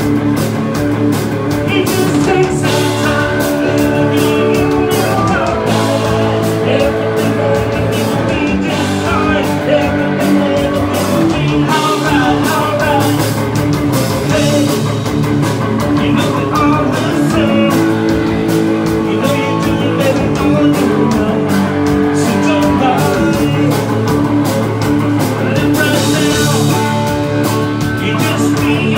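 Live rock band playing loudly, with electric guitar and electric bass guitar.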